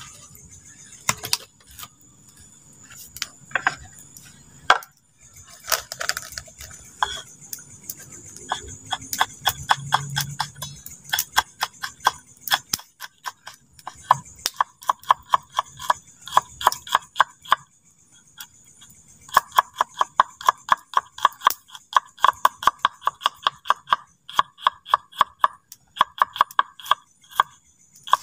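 Kitchen knife chopping food on a small wooden cutting board, in runs of quick, even strokes several a second with short pauses between runs. A few separate knocks come first, before the chopping starts.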